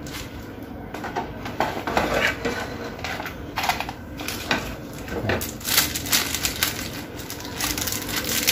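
Small tactile push-button switches being sorted through by hand: an irregular, continual clatter of small clicks and rustles.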